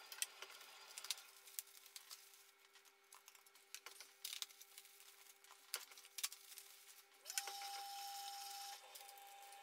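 Bubble wrap and plastic packaging crinkling and rustling faintly as small parts are unwrapped by hand: scattered soft clicks, with a louder rustle about seven seconds in lasting a second and a half.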